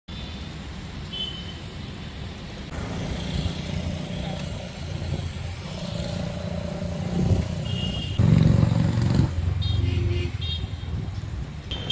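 Road traffic: motor vehicle engines running past, loudest for about a second some eight seconds in, with a few short high tones.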